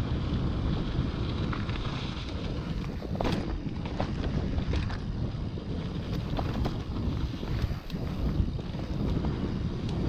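Wind buffeting the microphone over tyre noise as a mountain bike rolls down a dirt trail, with a few sharp knocks from the bike rattling over bumps.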